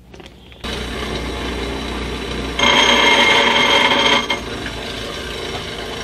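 Bench grinder running, starting about half a second in. For a little under two seconds in the middle it grows louder and higher-pitched, as a machined road-wheel flange is ground against the wheel to take a very small amount of material off its rim so that it will fit its tightly toleranced road wheel.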